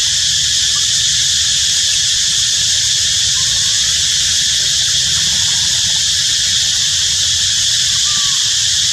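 Loud, steady, high-pitched insect chorus running without a break, with two faint short squeaks, one about a third of the way in and one near the end.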